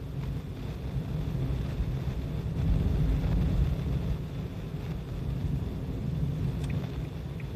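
Car driving, heard from inside the cabin: a steady low rumble of engine and road noise, swelling a little about three seconds in.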